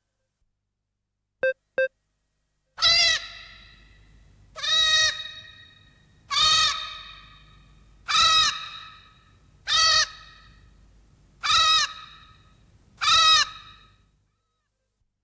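Minilla's cry, a Godzilla-film monster sound effect: a short call whose pitch rises and falls, repeated seven times about every second and a half. Two short beeps come just before the first call.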